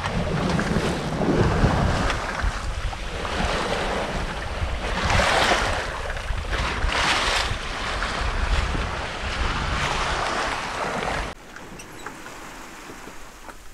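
Water rushing and splashing along a Dehler 34 sailboat's hull under way, with heavy wind noise on the microphone. There are two louder surges of splashing a little past the middle, and the noise drops suddenly to a quieter hiss near the end.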